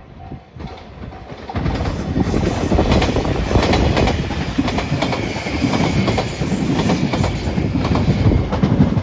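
Japanese level-crossing bell ringing in quick repeated dings, then about a second and a half in a train passes through the crossing at speed, its wheels clacking steadily over the rail joints with a faint high wheel squeal.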